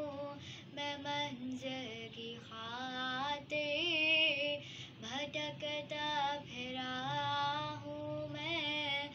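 A young girl singing an Urdu dua solo, drawing out the words in long held notes that waver and glide in pitch, with brief breaths between phrases.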